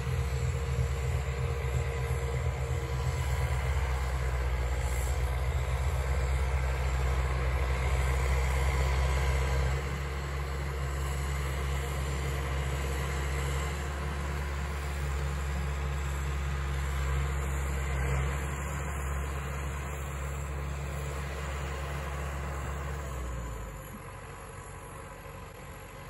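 Kubota M6040 tractor's four-cylinder diesel engine running a PTO-driven Bush Hog snowblower, heard from a distance as a steady low rumble. It drops in level about ten seconds in and again near the end.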